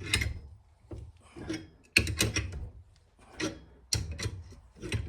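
Bearing puller being tightened in short strokes to force a bearing out of a skid steer track idler wheel, with repeated rasping, creaking metal as the bearing moves in its grimy bore.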